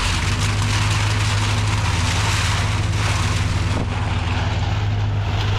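An engine running steadily with a low, even drone, under a continuous rushing noise that dies away just after the end.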